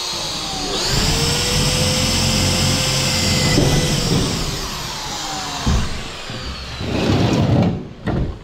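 Cordless drill driving screws into Hardiflex fiber-cement board on a steel tube frame: the motor whine drops briefly and speeds back up about a second in, runs steadily, then slows gradually and stops with a click. A few knocks and rustles follow near the end.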